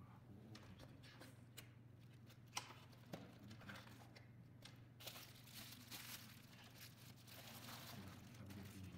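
Faint unpacking sounds: a couple of sharp clicks as the cardboard box's flap is opened, then bubble wrap crinkling as the panel meter is slid out of it over the last few seconds.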